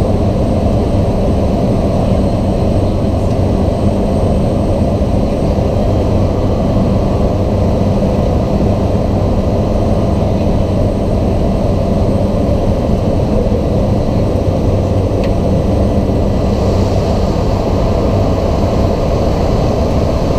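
Single turboprop engine of a Cessna 208B Grand Caravan EX running steadily, a constant low drone with a deep even hum.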